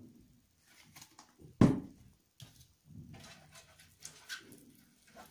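Kitchen handling sounds as oil is spread by hand over a metal baking tray: soft knocks and rustles, with one loud thump about a second and a half in.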